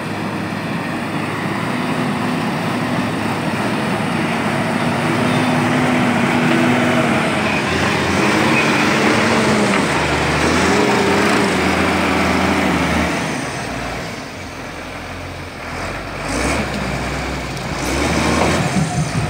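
XCMG LW300FN wheel loader's diesel engine running as the machine works a log grapple, its revs rising and falling. It eases off about fourteen seconds in and picks up again near the end.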